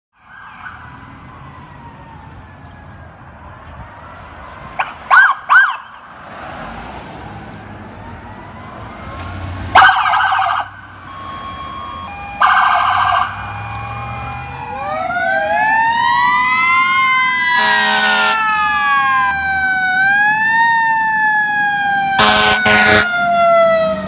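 Fire apparatus responding with sirens and air horns: an electronic siren wails, and several loud air horn blasts sound. About two-thirds of the way in, a fire tower ladder's mechanical Q-siren winds up to a high howl and slowly coasts down as it draws close.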